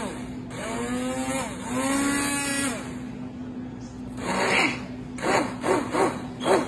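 Handheld immersion blender running in a bowl of chocolate pudding mix and almond milk: a steady motor hum, with a whine that rises and falls twice in the first few seconds, then a run of short uneven noises from the blade working the thickening mix in the second half.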